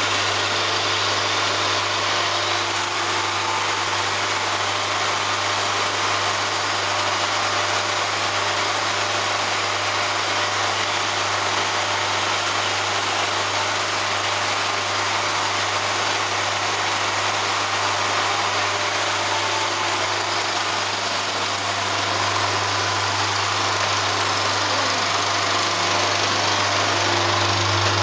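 35mm cinema projector with its film platter running: a steady mechanical whir over a constant low hum, getting a little louder near the end.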